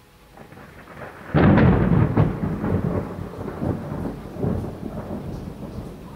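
A clap of thunder: a sudden loud crack about a second in, followed by several rumbling peaks that die away over the next few seconds.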